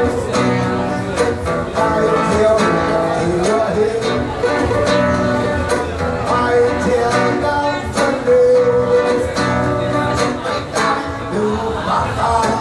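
Live acoustic guitar strummed in a steady rhythm, with a man singing along.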